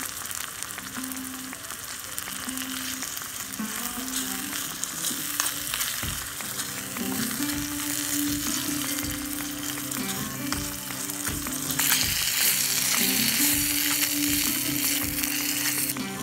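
Mushroom masala gravy sizzling in a miniature steel pot over a small wood fire, with a small spoon stirring and clicking lightly against the pot; the sizzle grows louder near the end. Soft background music plays underneath.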